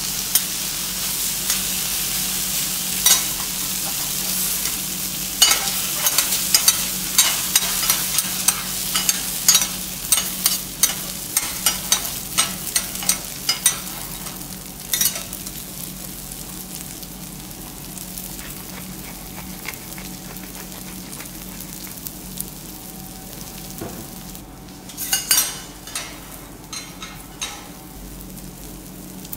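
Okonomiyaki frying on a teppanyaki iron griddle: a steady sizzle, with a quick run of sharp spatula taps and scrapes on the plate from about five to fourteen seconds in. The sizzle grows quieter about halfway through, and a few more taps come near the end.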